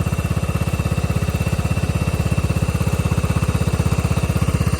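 A 1999 Cub Cadet HDS 2135 riding mower's engine idling steadily after a cold start, with a fast, even low chugging and a faint steady high whine.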